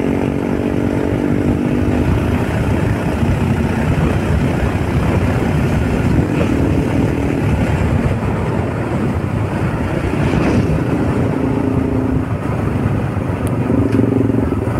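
Motorcycle engine running at riding speed, with heavy wind rumble on the microphone; the engine note shows through most clearly near the start and near the end.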